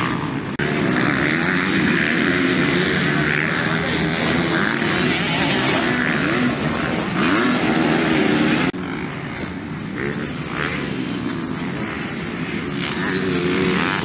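Motocross dirt bike engines (250cc and 450cc race bikes) revving hard and changing gear as they ride the track, the pitch rising and falling. The sound jumps abruptly about half a second in and again near nine seconds in.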